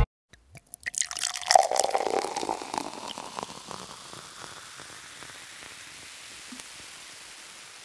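Water pouring out and splashing in quick spatters, loudest a second or two in, then tapering off into a steady faint hiss.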